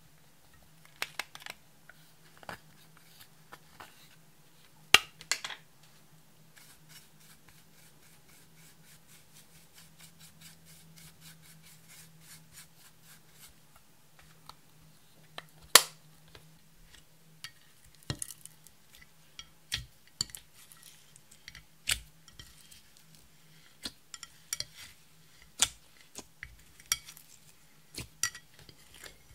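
A plastic spatula scraping crumbled pressed eyeshadow out of its compact and tapping against the compact and a glass container: scattered sharp clicks and taps, a few of them loud, with quiet stretches between. Near the end, hands pressing clear slime in a glass dish give more clicking.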